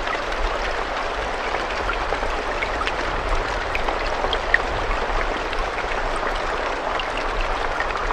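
Steady rain falling, a dense even hiss with scattered individual drops ticking and pattering through it.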